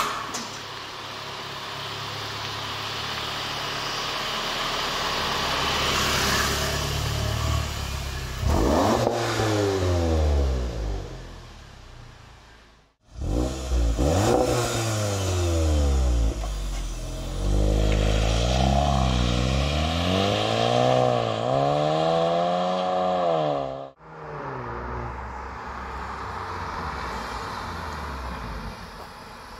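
Volkswagen Golf GTI Performance's turbocharged 2.0-litre four-cylinder engine and exhaust revving: a steady build in engine note, then repeated rises and falls in pitch. The sound stops abruptly twice, about 13 and 24 seconds in, between separate takes.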